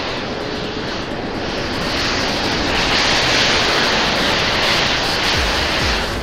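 Flames from thousands of burning matchsticks flaring up as a steady rushing noise that swells about halfway through. Low beats come in near the end.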